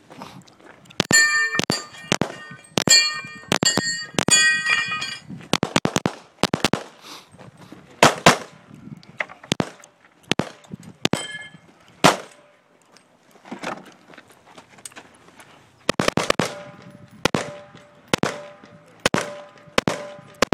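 Strings of pistol and rifle shots, each followed by the ringing of a struck steel target, at several different pitches. The densest strings come in the first few seconds and again near the end, with single shots between.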